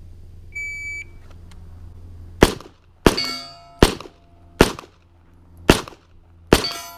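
A shot timer gives one short high beep, then a pistol fires six shots over about four seconds. Steel target plates ring after several of them, marking hits.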